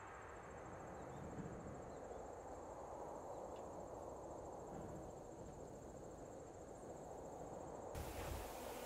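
Mosquitoes whining in a faint, steady hum, with a thin, high, rapidly pulsing insect trill above it. About eight seconds in, a hiss joins.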